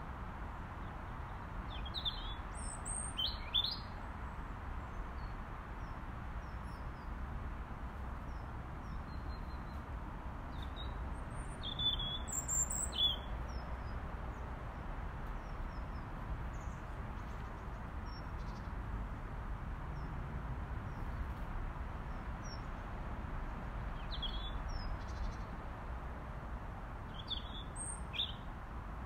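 Robin calling in short clusters of high, thin notes, heard about two, twelve, twenty-four and twenty-eight seconds in, over a steady low background rumble.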